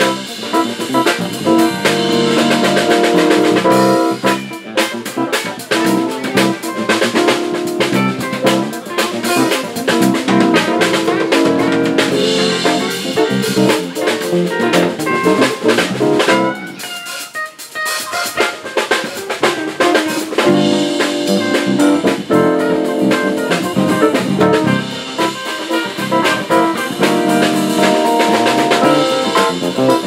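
Live band playing with acoustic and electric guitars, electric bass, keyboard and drum kit. The music thins out briefly a little past halfway, then comes back in full.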